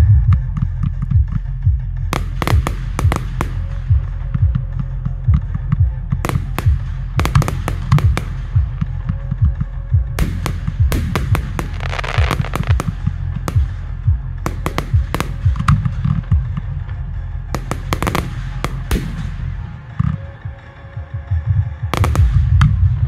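Fireworks display: clusters of shells bursting with sharp bangs and crackle every few seconds, the busiest stretch about halfway through. Underneath runs loud music with a heavy bass.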